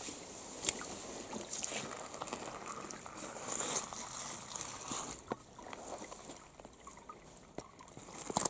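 Footsteps on wet gravel and fallen leaves along a shallow stream bed: irregular crunches and clicks over a steady hiss.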